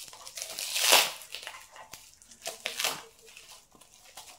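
Plastic wrapping crinkling and rustling in bursts as it is cut and pulled off a small parcel by hand, loudest about a second in.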